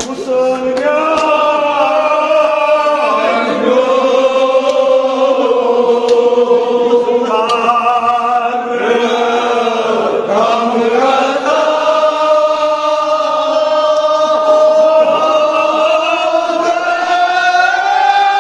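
Men's voices chanting a Kashmiri marsiya, a Shia mourning elegy, in long drawn-out notes that slide slowly up and down.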